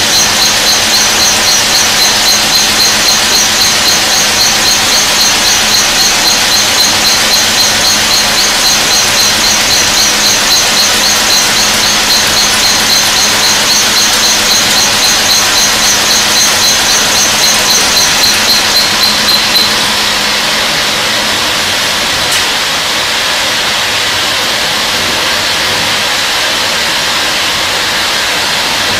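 Burgsmüller L5.4 thread-whirling head cutting a helical screw element: a loud, high-pitched squeal that pulses in a steady rhythm as the cutters bite. The squeal stops about twenty seconds in, leaving a steady hiss of the machine running on.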